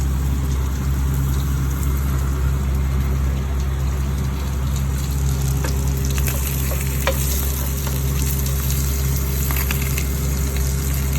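Salmon sizzling as it grills, a steady frying hiss over a low hum, with a few faint clicks in the middle.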